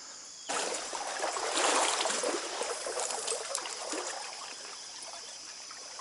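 Stream water trickling and rushing. It starts suddenly about half a second in and eases off after a few seconds, over a steady high chirring of crickets.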